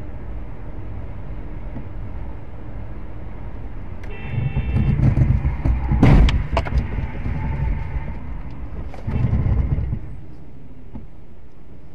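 Car's steady road and engine rumble, with a brief high-pitched tone about four seconds in. A loud bang of a car collision follows about six seconds in, then a second surge of rumbling about nine seconds in.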